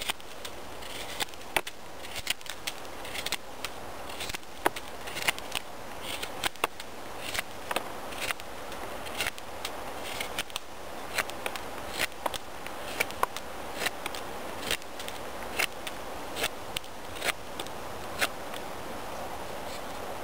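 Blind Horse Knives Pathfinder's Scandi-ground O1 carbon-steel blade shaving curls down a wooden stick to make a feather stick: repeated short scraping strokes, each ending in a sharp snick, about one or two a second.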